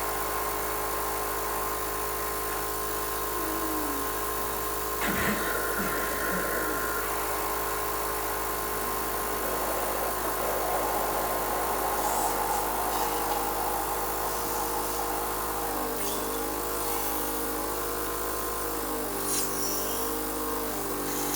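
Cough assist machine's blower running with a steady whine. It gives a short knock about five seconds in, and from about three-quarters of the way through its pitch shifts in steps several times as it cycles between pushing air in and pulling it out.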